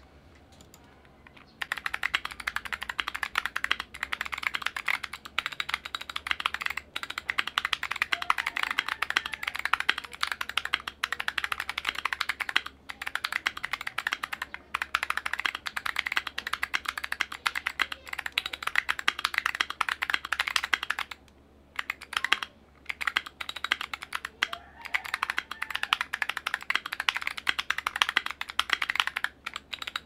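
Continuous typing on a mechanical keyboard with Kailh BOX Arctic Fox click-bar clicky switches, in a modded Keychron Q1 with a polycarbonate plate and PBT keycaps: a dense stream of crisp clicks. It starts about two seconds in and stops briefly about two-thirds of the way through.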